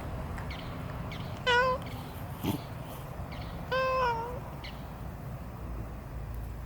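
A cat meowing twice: a short meow about a second and a half in, then a longer one with a dip in pitch at its end, with a brief click between them.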